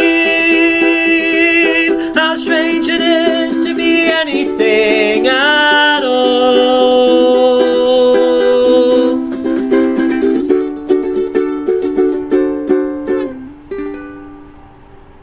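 The song's final line sung over a strummed acoustic string instrument, ending on a long held note with vibrato. The strumming goes on alone for a few more chords and then fades out near the end.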